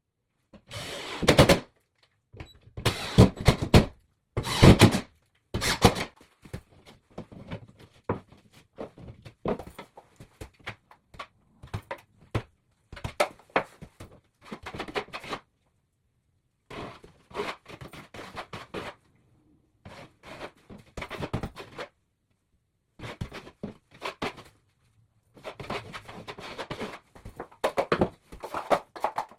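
Irregular thuds and knocks from tools working on drywall during a patch repair, coming in short bursts with silent gaps between them.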